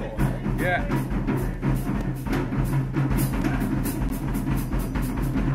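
Live blues-rock band playing: drum kit keeping a steady beat with bass guitar underneath.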